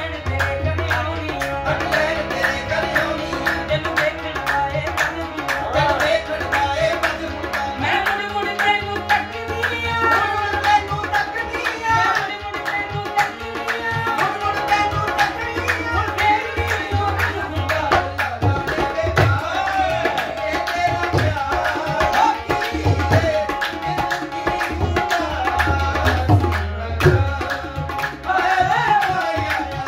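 Qawwali music: tabla and dholak playing a fast, busy rhythm under a steady harmonium, with male voices singing.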